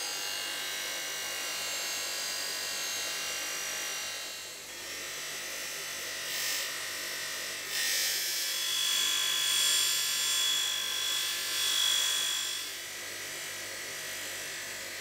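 Electric bench grinder running with a metal piece held against its spinning wheel: a steady motor hum under a high hissing grind. From about eight seconds in it grows louder with a thin high whine, easing back after about thirteen seconds.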